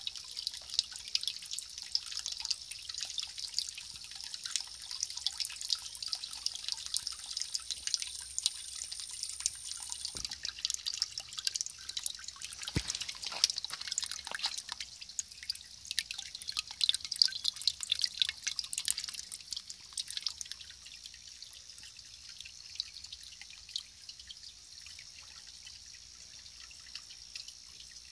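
Water trickling and splashing in a koi pond's bucket skimmer, heard as a dense patter of drips. There is one sharp knock about halfway through, and the patter turns quieter for the last several seconds.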